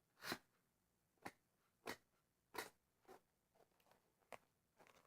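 Camera packaging being handled: a series of about seven short crackles and clicks of cardboard and plastic, spaced irregularly, with quiet between them.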